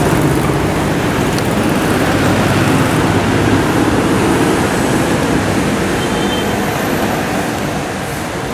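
City street traffic: the steady noise of passing cars and a motorcycle, engines and tyres on the road, easing off slightly near the end.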